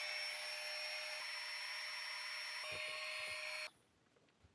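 A small electric motor with a fan spins up with a rising whine and runs steadily with a whirring hiss for a few seconds, then cuts off suddenly.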